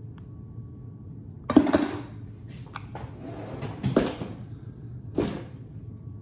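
A few separate knocks and clatters of a knife and watermelon pieces being handled and set down on a kitchen countertop, the loudest about a second and a half in, over a low steady hum.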